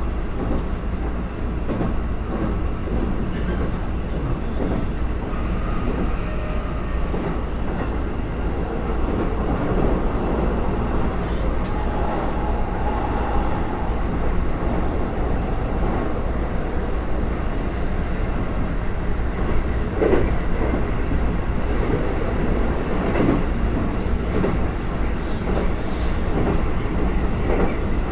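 Keikyu electric train running at speed, heard from inside the front car: a steady rumble of motors and wheels on rail with scattered wheel clicks over rail joints. The car is one that railfans call an 'odd-sounding car' (異音車) for its unusual running sound.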